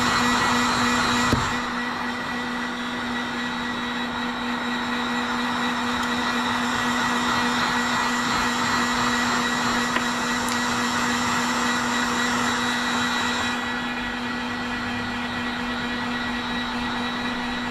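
Electric heat gun running steadily, its blower rushing over a constant low hum, while it shrinks heat-shrink tubing. The sound softens slightly about a second and a half in.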